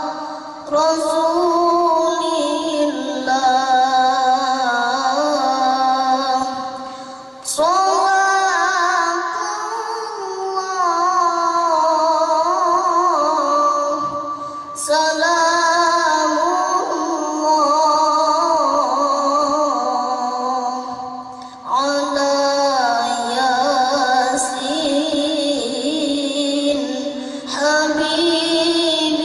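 A boy qori reciting the Quran in melodic tilawah style into a microphone, holding long ornamented notes that bend up and down. It runs in long phrases, with a short break for breath between each, four times.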